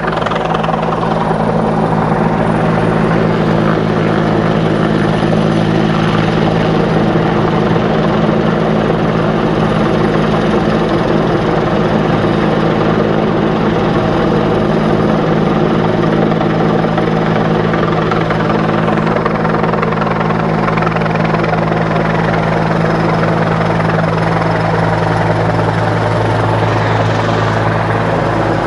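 Firefighting helicopter carrying a Bambi bucket, flying in close: a loud, steady rotor and engine sound that thickens in the low end near the end.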